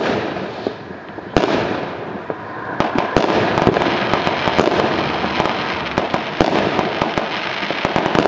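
Fireworks going off: sharp bangs of bursting aerial shells over continuous crackling, a few spaced bangs at first, then coming thick and fast from about three seconds in.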